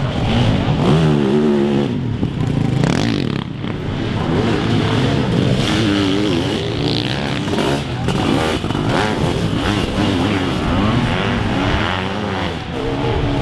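Several sidecarcross outfits' motorcycle engines revving hard, their overlapping pitches rising and falling as they race over the track.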